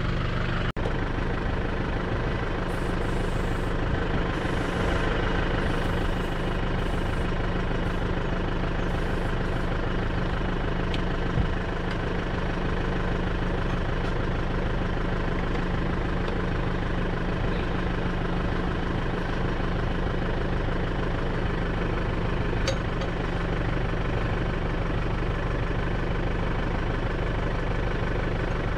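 Tractor's diesel engine idling steadily close by, with a couple of brief sharp clicks.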